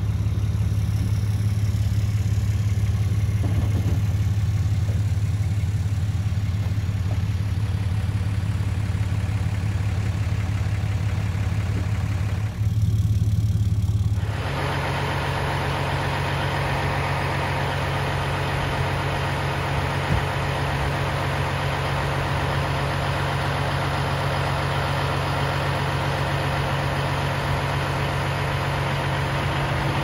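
Truck engines idling up close: a steady low hum in the first half, then after a cut about halfway a different, harsher diesel idle next to a semi-truck.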